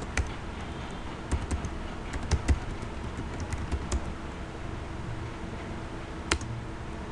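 Typing on a computer keyboard: irregular keystroke clicks, most of them in the first four seconds, with one more near the end, over a low steady hum.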